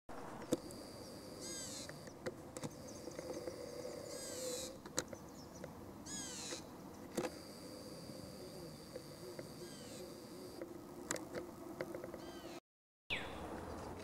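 A songbird singing short bursts of rapid, down-slurred high notes, three times in the first seven seconds and more faintly later, over a steady high-pitched whine.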